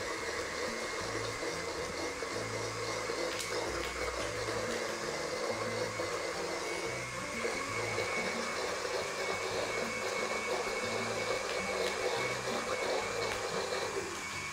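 Countertop blender motor running steadily at speed, puréeing tomatoes, onion, garlic and beef broth into a sauce; the motor noise stops right at the end.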